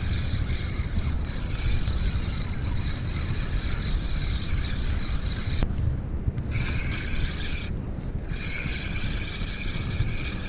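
Shimano Sahara 4000XG spinning reel whining steadily as line is reeled in against a hooked fish, with heavy wind buffeting the microphone. The whine cuts out twice, briefly, past the middle, as the reeling pauses.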